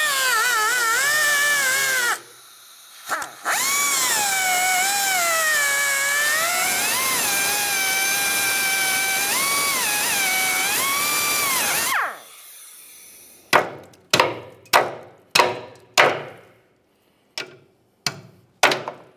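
A cutoff wheel grinds through a rusted ball joint stud: a loud, high whine that dips and wavers in pitch as the wheel bites. It stops about two seconds in, runs again from about three and a half seconds, and cuts off around twelve seconds in. Then come about eight or nine separate sharp metal strikes on the cut stud.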